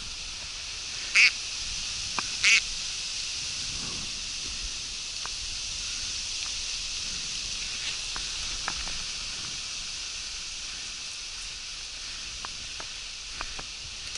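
Two loud, short duck quacks about a second and a half apart, followed by a few faint ticks over a steady high hiss.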